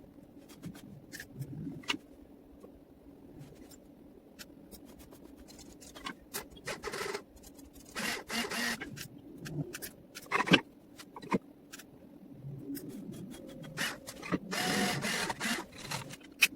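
Scattered clicks and knocks of tools and parts being handled, with two longer bursts of scraping noise, one about halfway through and one near the end, over a faint steady hum.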